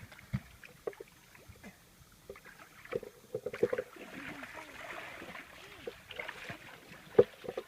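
Water sloshing and splashing with scattered small knocks and clicks, and one sharp knock about seven seconds in.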